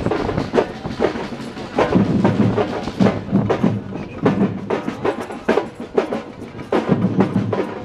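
Drums beating a steady, repeating rhythm, with low, heavy strokes on the beat.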